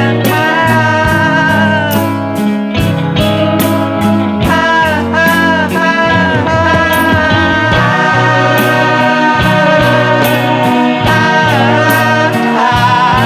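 Music: a song with guitar over a steady drum beat.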